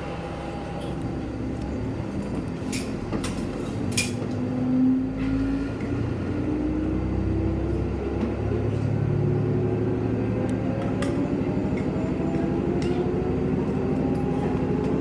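Heisei Chikuho Railway diesel railcar gathering speed, heard from inside the cabin: the engine and transmission whine rise steadily in pitch while a low rumble from the running gear builds. A few sharp clinks and ticks come through, mostly in the first few seconds.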